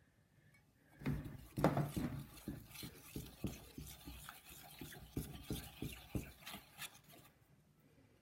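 Spoon stirring a glue, water and laundry-detergent slime mixture in a bowl, a run of irregular scraping strokes starting about a second in and fading out near the end. The liquid is just starting to thicken into slime.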